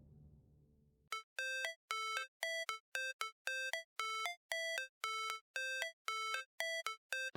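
A run of short, clean electronic beeps, about two a second, stepping between a few pitches like a ringtone melody. Before them the tail of background music fades away.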